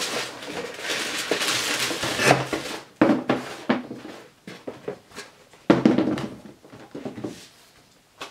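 Packaging rustling for about three seconds as a running shoe is unpacked from its box, then a series of light knocks and handling sounds as the shoe is handled.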